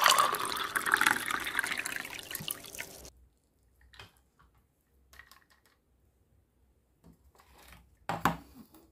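Liquid poured from a small toy pot into a bowl of plastic toy vegetables, splashing and trickling and fading out after about three seconds. After that come a few light knocks of toys being handled, the loudest near the end.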